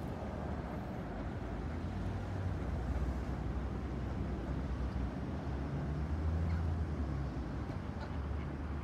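Steady low outdoor rumble, swelling slightly a few times, with no distinct calls standing out.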